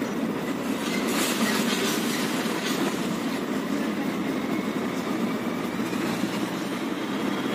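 UD Nissan heavy truck's turbo diesel engine running as the truck moves slowly, heard from inside the cab, with a few rattles in the first few seconds. A faint turbo whistle rises slightly about five to six seconds in.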